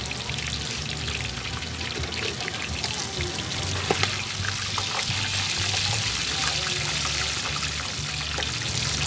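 Battered skewers deep-frying in a wok of hot oil: a steady sizzle that swells in the middle as a wire skimmer stirs through the pieces, with a sharp click about four seconds in.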